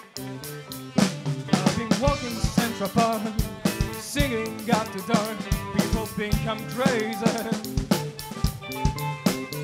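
Live rock band: after a short gap, the full band comes in about a second in, with drum kit, bass and electric guitars, and a saxophone playing a bending lead line over the top.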